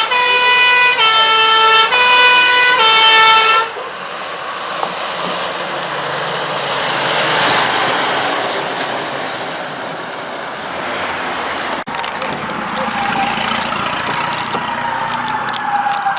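Fire engine's two-tone hi-lo warning sounding four notes of about a second each, alternating high and low, then the rush of a passing emergency vehicle. About twelve seconds in, a siren starts, slowly falling in pitch.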